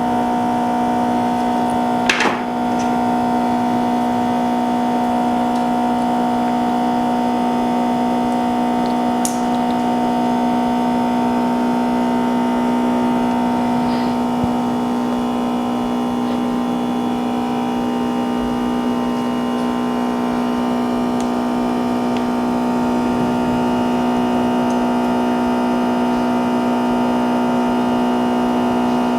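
Steady electrical machine hum with several fixed tones, unchanging throughout, and a single click about two seconds in.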